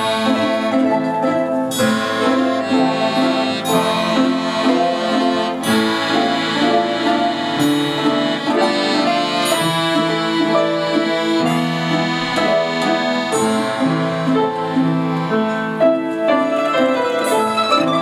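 Orchestra playing a piece, the music continuing without a break at a steady loudness.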